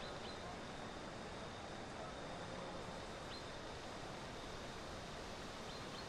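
Outdoor ambience: a steady hiss with a low rumble underneath and a thin, steady high tone, with a few faint short high chirps, one near the start, one about the middle and one near the end.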